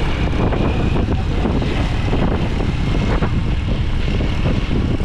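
Motorcycle running steadily on the move: a continuous engine drone mixed with rushing wind noise.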